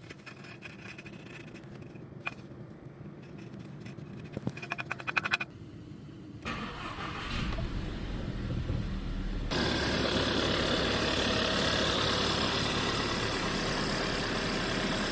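A series of clicks, then a VW Tiguan's 1.4 TSI turbocharged four-cylinder petrol engine is cranked for about three seconds, catches about nine and a half seconds in and settles into a steady idle: the engine starting again after its no-start fault was fixed.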